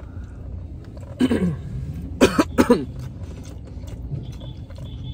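A man eating makes short wordless sounds through a mouthful of food: one falling vocal sound about a second in, then two short cough-like bursts a little after two seconds. A steady low rumble of the car's cabin runs underneath.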